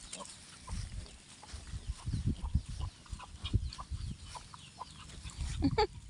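Chickens clucking with scattered short calls, over low rustling and thumps. A brief squealing call rises and falls near the end.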